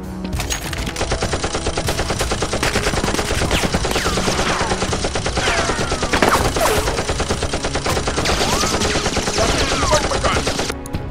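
Sustained rapid automatic gunfire, with several sharp falling whistles running through it. It starts just after the beginning and cuts off abruptly about a second before the end.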